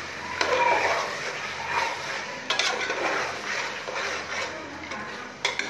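Metal spatula stirring chicken pieces through thick masala in a metal pot, scraping against the pot, with two sharp clinks: one about halfway through and one near the end.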